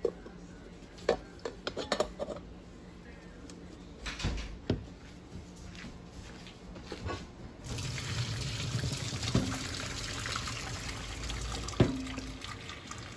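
A few clinks and knocks of the metal pot and lid as the pot of boiled potatoes is lifted and carried. About eight seconds in, hot cooking water starts pouring steadily from the tilted pot past its lid into a stainless steel sink, draining the potatoes, with one sharp knock near the end.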